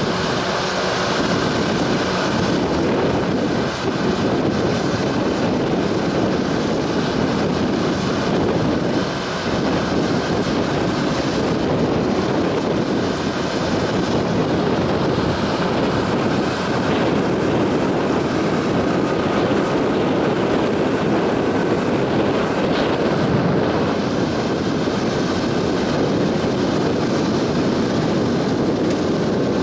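Steady drone of a small harbour workboat's diesel engine running under way.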